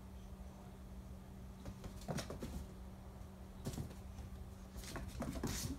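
Kittens' paws pattering and scuffing on a vinyl floor as they chase a laser dot, a few scattered soft taps over a steady low hum.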